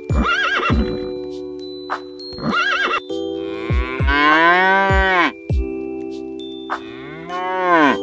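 A horse whinnying twice with a quavering call, then a cow mooing twice in long calls that rise and fall in pitch, over background music with plucked notes.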